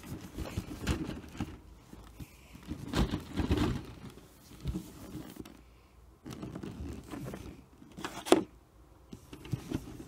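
Cardboard box being handled and pried at to get its lid off: irregular rustling, scraping and knocking of cardboard, with a sharp knock about eight seconds in. The box is packed tightly and the lid is not coming open.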